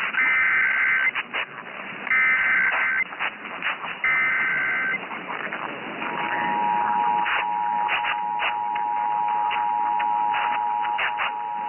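Emergency Alert System header: three bursts of screechy two-pitch data tones, each about a second long. About six seconds in, the EAS two-tone attention signal starts as a steady dual-pitched tone and keeps going. The sound is thin and radio-like, with crackles of static.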